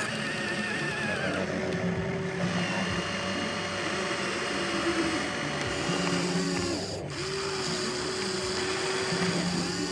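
Small electric motors of a remote-control toy excavator whining, starting and stopping repeatedly so the pitch rises and falls in short arcs.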